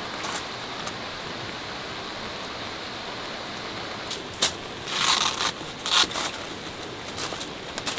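Steady rain falling, an even hiss. From about halfway through, a few short sharp clicks and rustles of something being handled sound over it.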